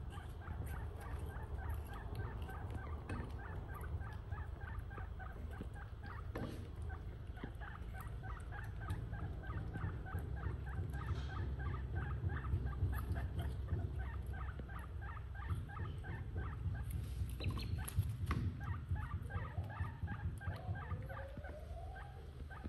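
Small animals calling in a rapid run of short, squeaky chirps, several a second, over a low rumble; a few rising calls come near the end.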